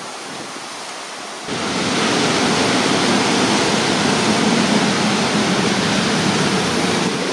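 Heavy rain coming down as an even, steady hiss. It gets suddenly louder about a second and a half in and stays that loud.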